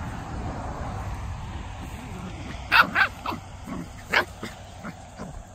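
Mini Goldendoodle puppies play-fighting, letting out about six short, high yips in the second half, two of them louder than the rest. A low rumble runs under the first half.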